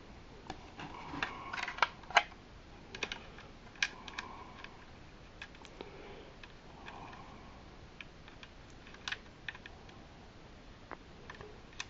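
Irregular light clicks and taps of hard plastic as a small Micro Galaxy Squadron toy ship is handled and a tiny figure is fitted into its cockpit.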